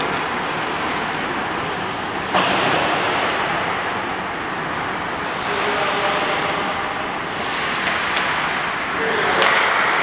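Indoor ice rink ambience during a hockey drill: a steady hiss of skating and rink noise with a few sharp clacks of sticks and puck near the end.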